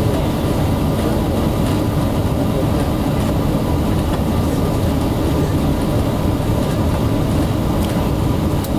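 Steady low rumble inside the cabin of an Airbus A380 on approach: engine and airflow noise heard from a window seat.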